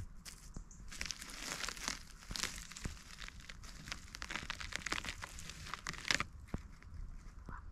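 Rustling and crackling of dry forest litter, leaves and twigs, with many small irregular snaps, as someone moves through the undergrowth on foot.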